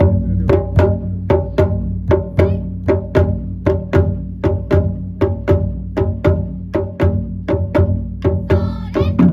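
Taiko drum ensemble playing: sharp, evenly spaced stick strikes about three a second over a steady low rumble from the big drums.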